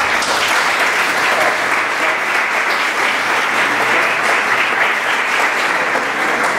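A roomful of people applauding, loud and steady, at the end of a talk.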